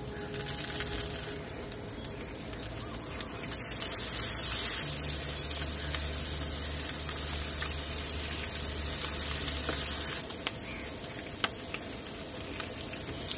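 Thin slices of raw meat sizzling in a hot frying pan on a camp gas stove as more are laid in. There is a steady hiss, louder through the middle with a low hum under it, and sharp crackles and pops near the end.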